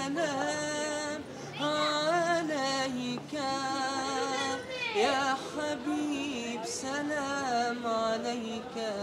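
A man singing unaccompanied, holding long notes that bend and waver with ornamented turns between them.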